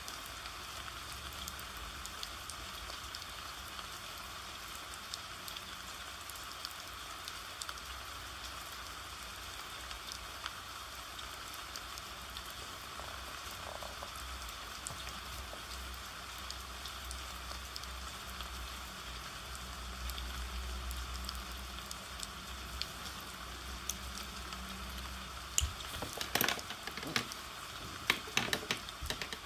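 Steady rain pattering, with fine drop ticks throughout and a cluster of sharper, louder taps and clicks near the end.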